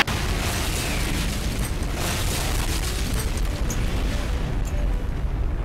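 Explosion sound effect: a sudden blast that rolls on into a long, steady rumble for several seconds, heavy in the low end, before cutting off.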